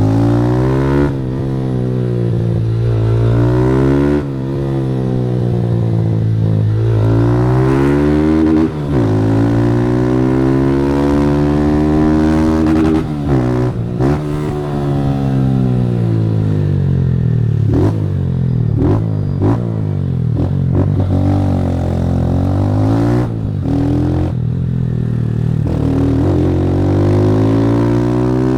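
Motorcycle engine with a Fortuna Trioval aftermarket exhaust, accelerating hard through the gears: its pitch climbs and drops back again and again at each shift. Through the middle it runs down slowly with a few sharp clicks, then climbs again near the end.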